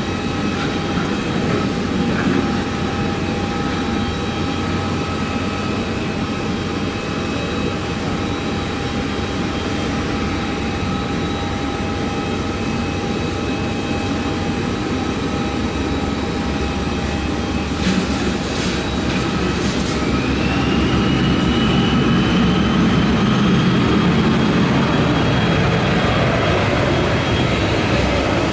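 Twin Honeywell HTF7000 turbofan engines of a Bombardier Challenger 300 (BD100) business jet running with a steady roar and whine. About twenty seconds in, a whine rises in pitch and the sound grows louder as the engines spool up toward takeoff thrust.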